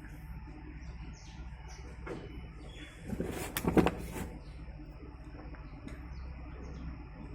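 Small birds chirping again and again over a low steady rumble, with a brief louder clatter about three and a half seconds in.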